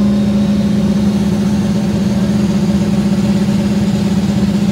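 Twin-turbo Ford Coyote 5.0 V8 in a Mustang idling steadily, a constant hum over an uneven, pulsing rumble.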